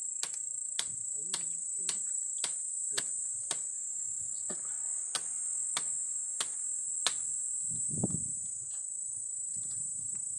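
Machete blade chopping into a tree trunk, about two blows a second, stopping about seven seconds in. A steady high insect drone runs underneath.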